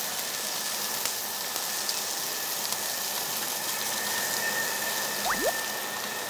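Pork sizzling on a tabletop barbecue grill: a steady hiss, with a short rising whistle-like sweep about five seconds in.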